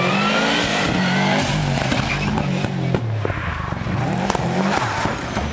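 Subaru Impreza rally car's flat-four engine revving hard, its pitch climbing and dropping with each gear change as the car accelerates through the stage. A few sharp cracks stand out above it.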